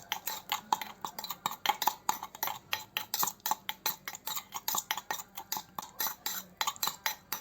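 A spoon clinking rapidly against its container while stirring crushed garlic, green chillies, chilli powder and salt into oil, several clicks a second. The clicking stops near the end.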